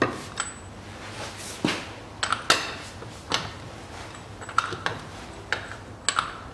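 A 30 mm socket and long wrench bar knocking and clinking against the front drive-shaft hub nut while the nut is broken loose. There are about ten sharp metallic clinks at irregular intervals, some with a brief ring, and the loudest come at the very start and about two and a half seconds in.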